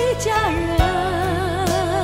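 Background music: a slow song whose lead melody moves in long notes with a wide vibrato, over a steady drum beat.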